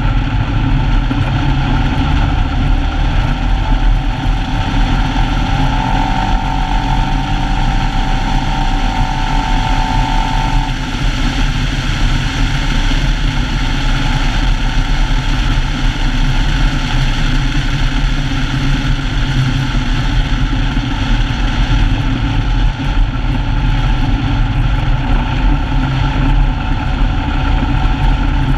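Polaris RZR side-by-side's engine running steadily while driving along a rough dirt track, with a higher whine added between about six and ten seconds in.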